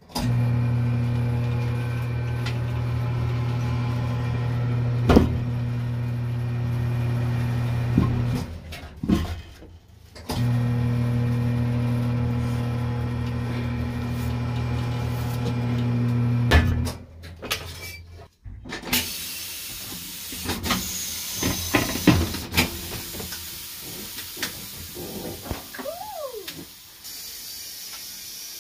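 Electric motor of a tire-changing machine running with a steady hum in two stretches of about eight and six seconds, each starting and stopping abruptly. It is followed by compressed air hissing into the tire, with a few sharp pops.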